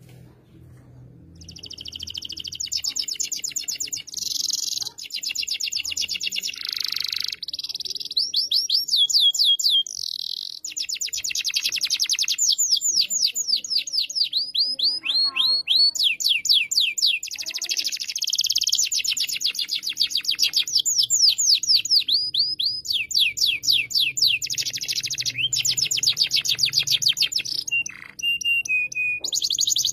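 Domestic canary singing a long, loud song: fast trills of rapidly repeated high notes, each roll giving way to a new one every second or two, starting about a second and a half in.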